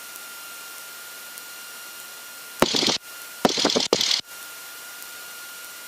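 Steady hiss of an aircraft headset intercom feed, with a faint steady high tone running through it. A short burst of voice breaks in about two and a half seconds in and lasts a little over a second.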